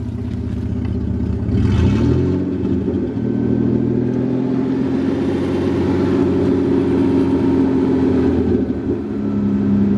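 Dodge Ram pickup engine running, then revving up about two seconds in as a board wedged on the gas pedal pushes it, and holding steadily at raised RPM to boost charging for a jump start.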